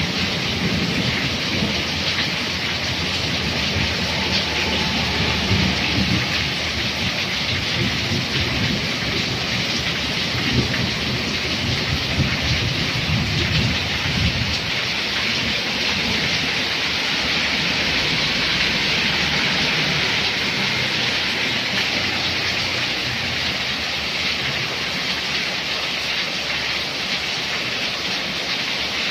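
Heavy rain pouring down in a steady hiss, with a low rumble underneath that is stronger in the first half.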